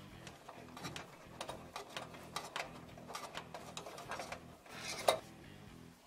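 Light clicks and small metallic rattles from hands working wire connectors inside a gas furnace cabinet, with one sharper click about five seconds in.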